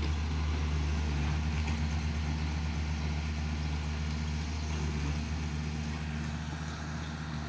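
Crawler excavator's diesel engine running steadily, a low, even hum that grows slightly fainter over the last couple of seconds.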